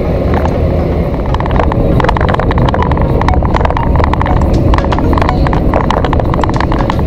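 Steady low rumble of a lorry's engine and road noise heard inside the cab. From about a second and a half in, rapid irregular clicking joins it.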